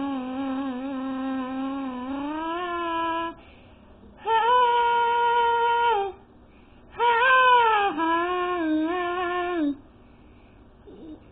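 A young girl singing three long held notes with short breaks between them. The first note is lower and rises near its end; the second and third are higher and slide down at their ends.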